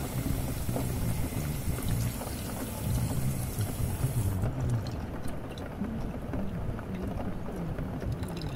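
Layered ambience of steady rain with low, muffled music playing underneath. A high hiss in the mix cuts off suddenly about four seconds in, leaving faint scattered ticks over the rain and music.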